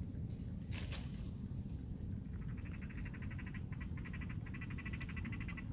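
A frog calling: a fast, evenly pulsed trill that starts about two and a half seconds in, breaks off briefly twice, and stops near the end.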